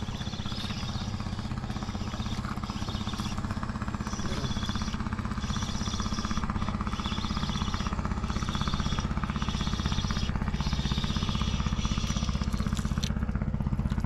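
An engine running steadily with a low, even pulse, and over it a high whir that comes in regular pulses under a second long as a Ryobi Ultra Power spinning reel is cranked in.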